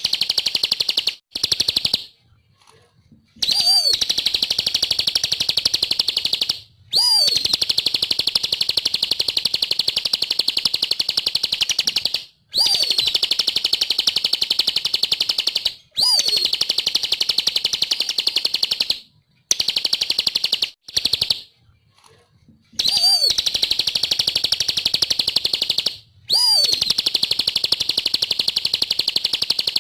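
Ciblek (bar-winged prinia) singing long runs of rapid, high chattering notes, each run lasting a few seconds and opening with a short down-slurred note, with brief pauses between runs.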